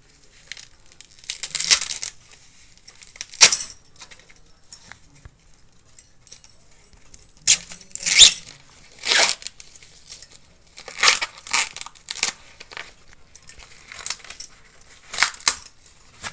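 Green husk leaves being torn off a fresh ear of corn by hand: a series of short ripping, crackling tears with pauses between them.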